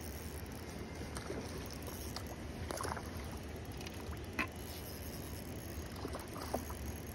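Water splashing and sloshing at the water's edge, with a few brief sharper splashes about three, four and a half and six and a half seconds in, over a steady low rumble.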